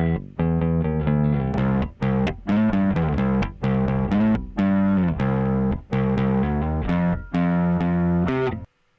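Bass guitar line run through the McDSP KD1 Kinetic Drive's analogue saturation in rear-wheel drive mode, which adds edge centred on the low frequencies. A quick run of notes with several pitch slides, cutting off suddenly near the end.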